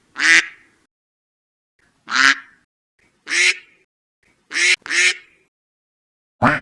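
Duck quacking: six short, nasal quacks one to two seconds apart, two of them in quick succession, with dead silence between them.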